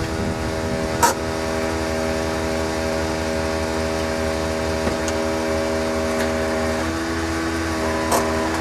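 Viair 98C onboard air compressor running steadily and noisily as it refills the air tank, with two short clicks, one about a second in and one near the end.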